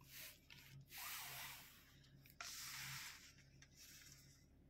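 Near silence: a few soft hissing puffs, like breaths close to the microphone, over a faint low hum.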